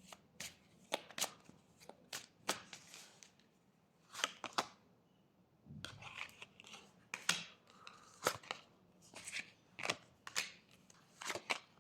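Tarot or oracle cards being handled: a string of irregular, fairly faint snaps and rustles as cards are shuffled and laid down.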